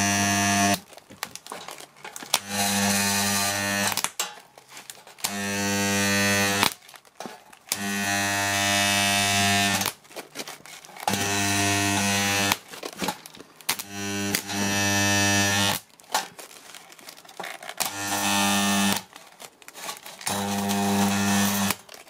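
Microwave-oven-transformer spot welder firing in eight bursts of one to two seconds, each a loud, deep mains buzz while weld current flows through the sheet metal between the electrodes. Short gaps fall between the pulses.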